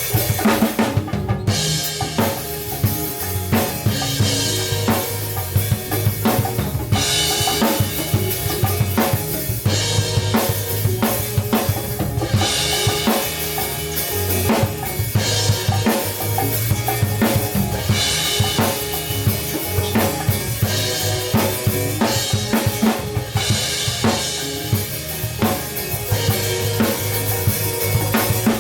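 A band playing, led by a drum kit with kick drum, snare and cymbal crashes every few seconds over a steady bass line.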